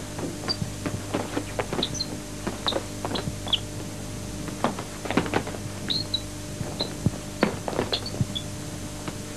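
Irregular thuds of gloved punches and kicks landing during a half-contact kickboxing sparring bout, mixed with the scuffing footwork of two men. Short high squeaks of sneakers on the mat come in among the hits.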